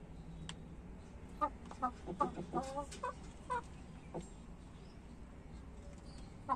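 Aseel cross chickens clucking: a quick run of short calls about one and a half to three and a half seconds in, then quieter.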